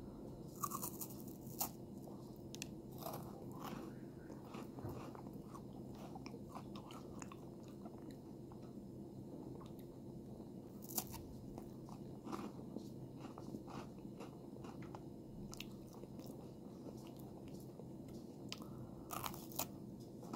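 Bites snapping off a thick dark chocolate bar, crisp cracks followed by softer chewing and crunching at close range. The loudest snaps come near the start, about halfway through and near the end.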